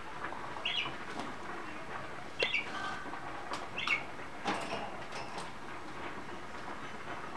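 Pet budgerigars giving about three short chirps over a steady background hiss, with a few sharp clicks in between.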